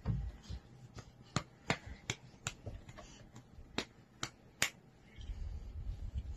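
A dozen or so sharp, quiet clicks at irregular spacing, a few of them louder than the rest. A low rumble comes in during the last second or so.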